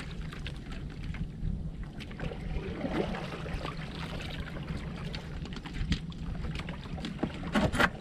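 Fishing boat's engine running with a steady low hum, with a quick clatter of knocks near the end.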